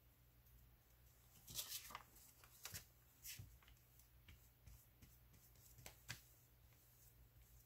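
Near silence broken by a few faint, short paper rustles: a paper envelope being shifted and turned on a cutting mat, and a brush spreading medium over thin napkin paper glued to it.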